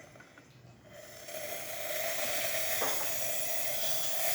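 La Pavoni lever espresso machine's steam wand opened, steam hissing out with a steady tone running through it, starting about a second in and building. This is the strong steam of a machine running correctly after a full tune-up.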